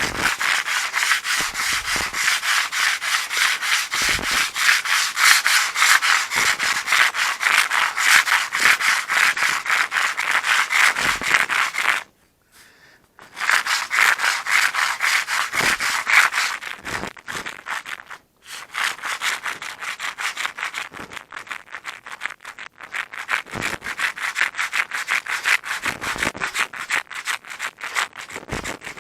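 Sandpaper rubbing back and forth in quick, even strokes on the balsa leading edge of a model airplane's horizontal stabilizer, shaping it down to a guard of tape. The strokes stop for about a second partway through and pause briefly again a few seconds later.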